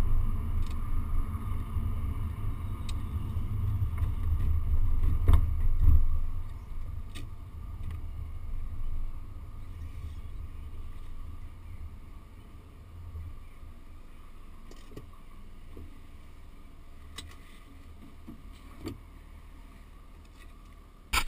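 Low rumble of a car's engine and tyres heard from inside the cabin while driving, easing off after about six seconds as the car slows to a crawl and leaving a quiet engine idle. A few faint clicks, and a sharp knock right at the end.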